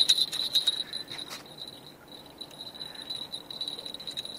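Crickets chirping at night, a steady high, finely pulsing trill, with a few clicks in the first second and a half.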